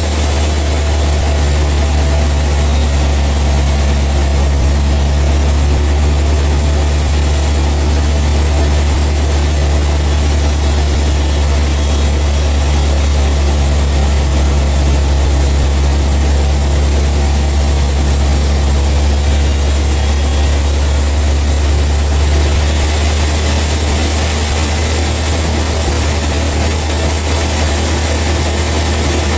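Heavy sawmill machinery running steadily, a loud low engine-like drone that holds constant without revving or cutting.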